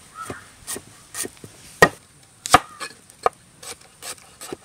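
Repeated chopping strikes on wood: about ten sharp knocks at an uneven pace, the two loudest near the middle.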